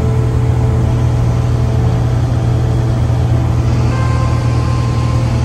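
Cessna 170B's six-cylinder Continental engine and propeller drone steadily in flight, heard from inside the cabin.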